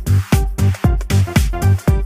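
Electronic dance music with a steady kick drum and bass hit about twice a second.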